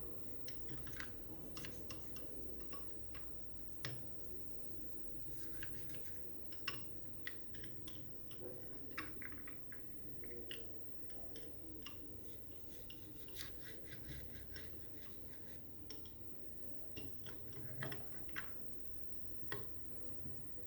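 A toothbrush scrubbing a hard plastic bruxism night guard: irregular scratchy strokes and sharp little clicks of plastic, over a steady low background hum.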